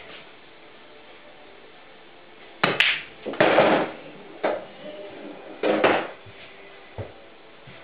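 Billiard shot: the cue clicks against the cue ball, which clacks into a red ball, followed by a short rattle as the red drops into a pocket, then more ball clacks. The impacts are sharp and separate, the rattle about half a second long.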